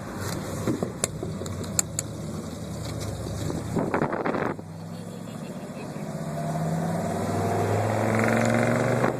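A motor vehicle's engine running, its low hum growing steadily louder over the second half, with a few sharp clicks about one and two seconds in.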